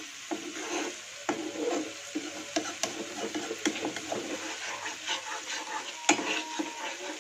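Metal spoon stirring and scraping ground shallot-and-garlic spice paste frying in a granite-coated frying pan, with a soft sizzle under it. The spoon taps sharply against the pan every second or so, loudest about six seconds in.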